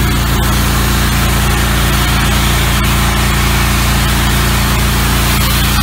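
Small engine of a pressure washer running steadily at a constant pitch, with the hiss of its high-pressure water jet blasting into leaf litter and soil.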